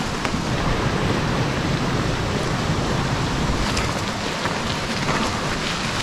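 Steady rushing noise with an unsteady low rumble: wind buffeting the microphone.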